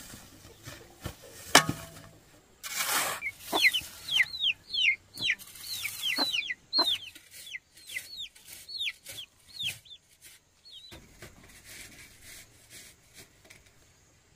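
Chicks peeping in a run of short, high, falling cheeps, about two a second, with a hen clucking among them. Before that, for about the first three seconds, a shovel scrapes and tosses sand, with one sharp knock.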